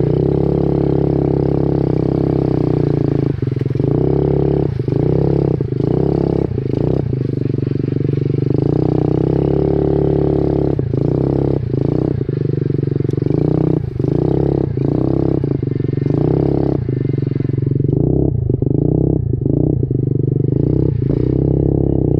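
Minibike engine running under throttle, recorded close on the bike, with the engine note dropping off briefly every second or so as the throttle is chopped and reopened.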